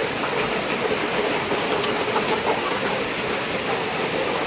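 A large flock of young chickens in a poultry house, a dense steady din of many birds calling at once while they feed.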